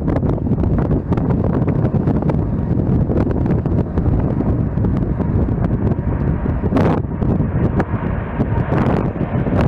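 Strong wind buffeting the microphone: a steady low rumble broken by frequent short gusting thumps.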